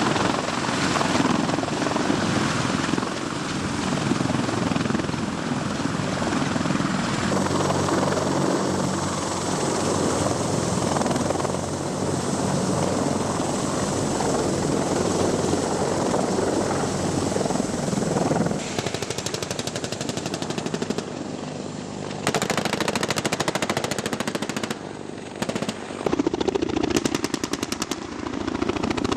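CH-53 heavy transport helicopter running loud and steady, its rotor and turbine noise filling the first two-thirds. The sound then gives way to several bursts of rapid automatic gunfire.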